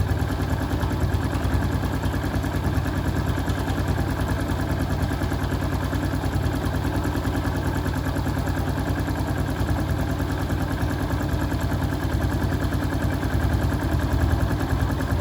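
Honda Pop's small four-stroke single-cylinder engine idling steadily with an even, fast pulse. The oil-fed cam chain tensioner's bleed bolt is loosened to let trapped air out, and the engine noise is still there: air in the tensioner after the wrong bolt was removed during an oil change.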